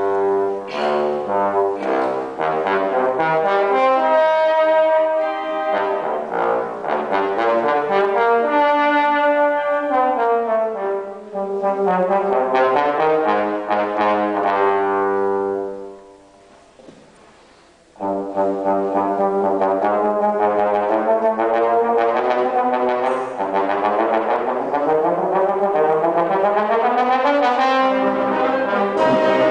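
Bass trombone solo with concert band accompaniment, played live: sustained brass lines over the full band. Just past the middle the music falls away to a brief lull for about two seconds, then the band comes back in abruptly.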